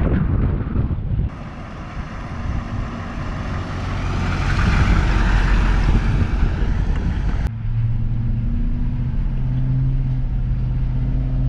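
The M1008 CUCV's 6.2-litre diesel V8 heard from outside as the truck drives away, rising in level with wind on the microphone. About seven seconds in it cuts to the inside of the cab: a steady engine drone while cruising.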